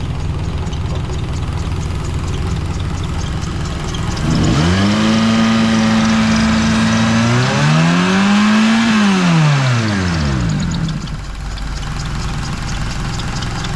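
Honda car engine idling with a fast, light high-pitched ticking, then revved hard about four and a half seconds in. It is held high, pushed higher near nine seconds, and let fall back to idle around eleven seconds. The engine is running on a freshly fitted drive belt that the owner finds squeaky and misbehaving.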